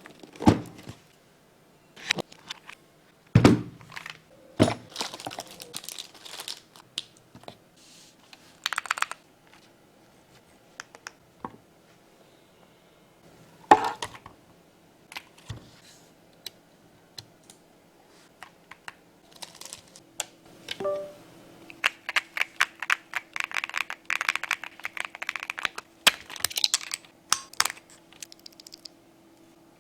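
Packaging being handled: scattered knocks, cracks and crinkling as the keyboard is unboxed. In the last third, rapid typing on the Keychron Q5 Max mechanical keyboard, a dense run of key clicks, with a brief tone just before it starts.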